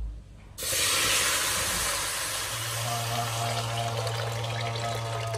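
Water poured in a steady stream into a metal pot of hot fried seasonings on a stove burner. The splashing starts suddenly about half a second in and carries on as the pot fills.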